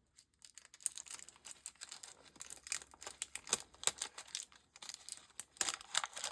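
Paper packaging crinkling and rustling in the hands as a handmade paper pocket is worked open, with many small irregular crackles.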